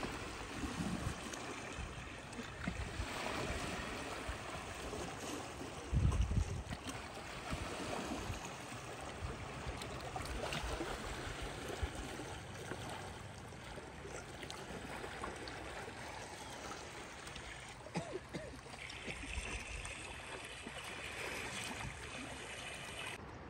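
Small waves lapping and washing around rocks at the water's edge, a steady low splashing with small scattered ticks. There is a brief low rumble about six seconds in.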